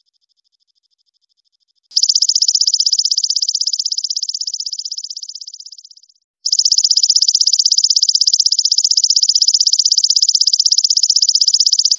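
Belalang emas (golden katydid) calling: a high, rapidly pulsed buzzing trill. It is faint at first, comes in loud about two seconds in, fades out near six seconds, and after a brief pause starts again at full strength.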